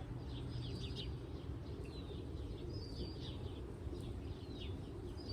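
Small birds chirping and twittering in quick repeated calls, over a steady low rumble.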